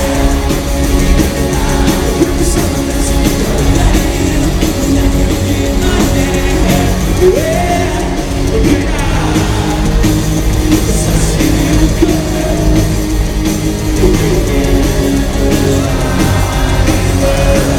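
A rock band playing live with a lead singer, electric guitars and drums.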